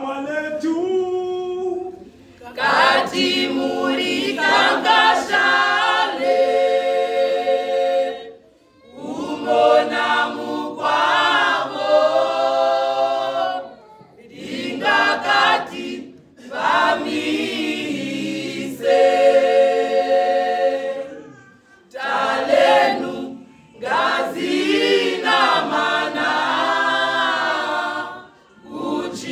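Choir singing a cappella, in phrases a few seconds long separated by short breaks. A single voice sings a brief line first, then the full choir comes in.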